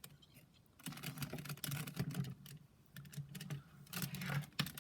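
Plastic clicking and clacking of a Siamese Rubik's Cube's layers being turned by hand, in two runs of quick clicks with a pause between.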